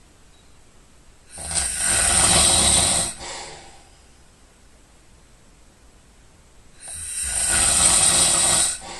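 A person snoring loudly: two long snores about five seconds apart, each lasting about two seconds, a low rumble with a strong hiss over it, and quiet breathing pauses between them.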